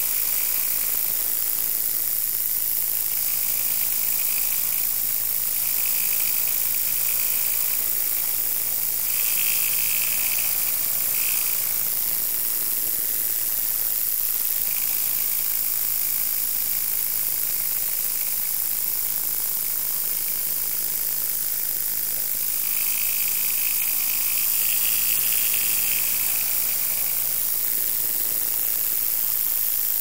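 Car's rotary engine running at a steady cruise with light throttle, a steady hum and hiss, with a higher-pitched sound that swells in and out every few seconds, which the driver believes is engine knock.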